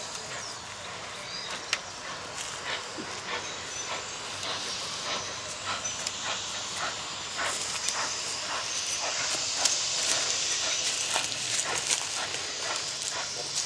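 Small saddle-tank steam locomotive hissing steam, with steam blowing from its cylinder drain cocks; the hiss swells about four seconds in and stays strong until near the end. Irregular clanks and clicks sound throughout.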